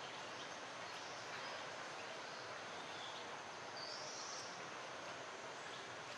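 Steady forest ambience, an even hiss of outdoor background noise, with a brief high-pitched call about four seconds in.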